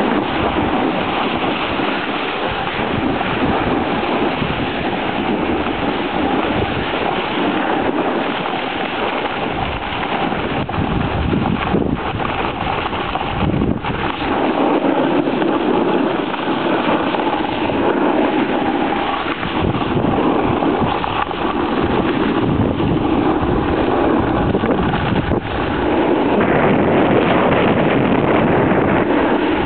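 Wind rushing over the microphone while riding a snowboard downhill, mixed with the board sliding and scraping over the snow; a steady noise that gets a little louder near the end.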